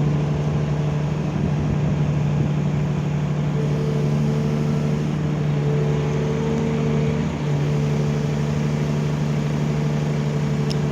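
Excavator's diesel engine running steadily with an even hum, dipping briefly about seven seconds in.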